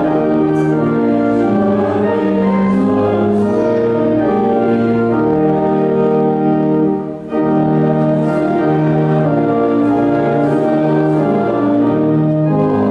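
A hymn on organ with voices singing, in held chords, with a short break between phrases about seven seconds in.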